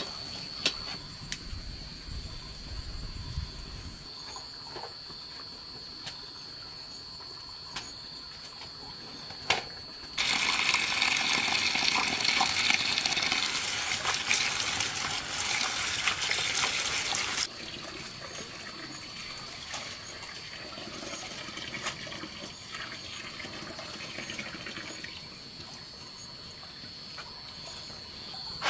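Water running hard from a tap for about seven seconds, starting and stopping suddenly. Under it is a steady high-pitched insect trill, and there are a few sharp knocks.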